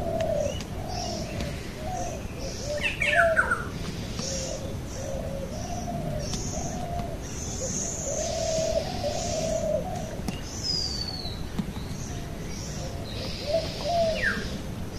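Birds calling: a low call repeated over and over, with short high chirps from other birds and a quick falling whistle a few seconds in and again near the end.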